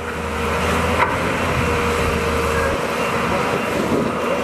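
Caterpillar hydraulic excavator running steadily, its diesel engine and hydraulics giving a continuous drone with a steady, slightly wavering tone; a low hum under it drops away a little under three seconds in.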